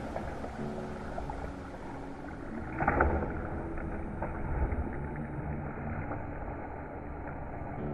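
Monkeys splashing as they jump into and swim through a concrete pool: a loud splash about three seconds in and a smaller one a second and a half later, over a steady wash of stirred water.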